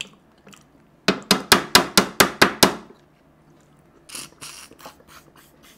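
A rapid run of about nine sharp knocks, some five a second, as a mutton nalli marrow bone is rapped against a steel plate to loosen the marrow. About four seconds in comes a hissing slurp as the marrow is sucked out of the bone.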